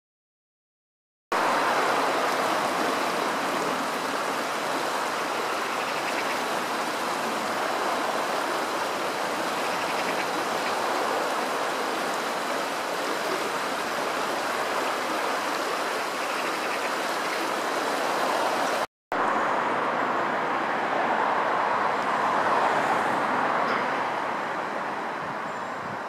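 Steady rush of a fast-flowing river running over stones, starting about a second in and dropping out for a moment about three-quarters of the way through.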